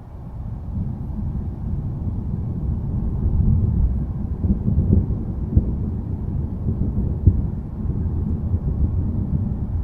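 Thunder rolling: a long low rumble that builds about a second in and keeps going, with a few sharper cracks through the middle.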